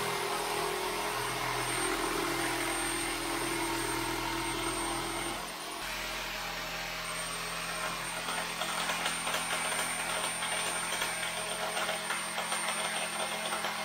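Corded power tool running steadily as it drills and cuts through a thick bulkhead to open an access hatch. The motor dips briefly about five and a half seconds in, then runs on rougher and more uneven.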